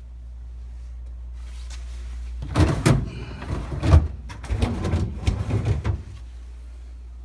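Refrigerator humming steadily, with a burst of irregular knocking and rattling from about two and a half seconds in that lasts about three and a half seconds, then the hum alone again.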